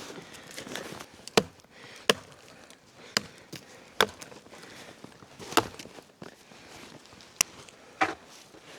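Chopping: seven sharp strikes at uneven intervals, each a short crack, the loudest about a second and a half in.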